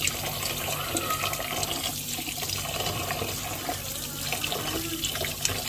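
Kitchen tap running steadily into a stainless-steel sink, the water splashing over okra pods held in the hand and into a plastic container as they are rinsed.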